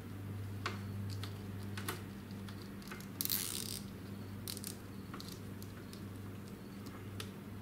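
Light clicks and handling noise of a tie being wrapped by hand around a charger cable and vacuum hoses, with a brief rasp about three seconds in. A steady low hum sits underneath.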